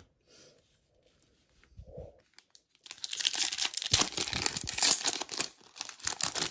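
Foil wrapper of a Panini Prizm Draft Picks card pack being torn open and crinkled, starting about three seconds in and lasting about three seconds.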